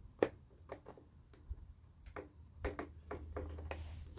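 Scattered light clicks and taps of a chainsaw combination tool and the plastic top cover of a Husqvarna Rancher 460 chainsaw as the cover screws are undone. A faint low hum comes in a little past halfway.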